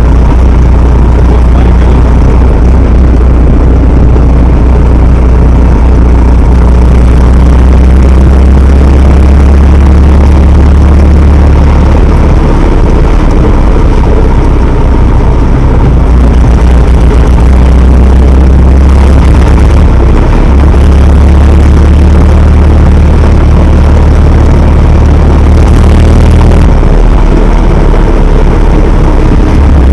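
GAZ-67 jeep's four-cylinder side-valve engine running while driving, heard loud from the driver's seat of the open-topped jeep. It is a steady low drone that shifts in pitch a few times.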